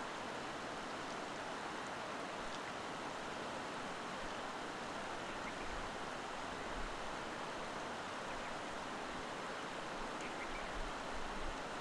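Steady, even rushing noise, with a few faint high ticks and brief low thumps in the second half.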